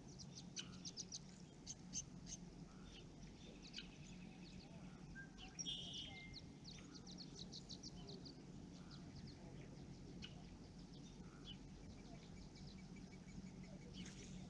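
Small birds chirping and calling: many short high chirps, with one louder call about six seconds in, over a faint steady low hum.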